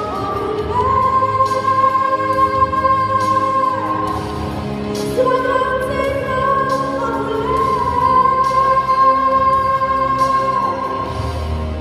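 A girl's solo singing voice with backing music, holding long, high sustained notes.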